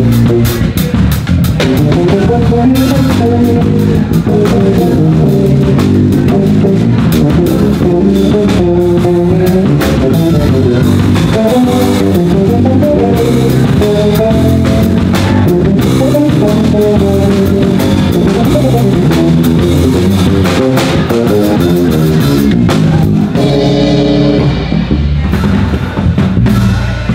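Two electric basses, one a six-string, and a drum kit playing instrumental music live, with bass lines running over a steady groove. Near the end the drums fall away for a few seconds, leaving the basses on their own.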